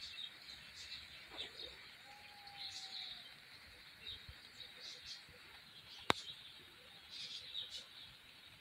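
Small birds chirping in short, high calls about once a second, with one longer, lower note that dips slightly about two seconds in. A single sharp click about six seconds in.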